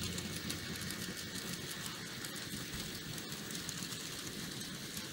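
HO scale model freight train rolling along the layout track: a steady rolling noise with light, irregular clicks from the wheels on the rails.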